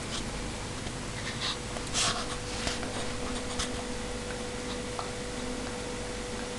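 Steady background hiss with a faint steady hum, and a few brief rustles, the loudest about two seconds in.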